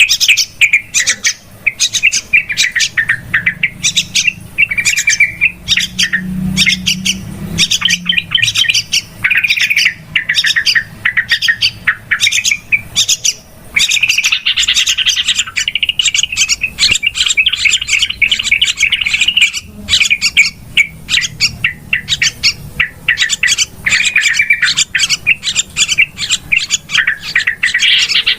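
Yellow-vented bulbuls (trucukan) chattering noisily, a dense run of quick, sharp notes with hardly a break. This is the excited chatter used as a lure call to draw in wild bulbuls.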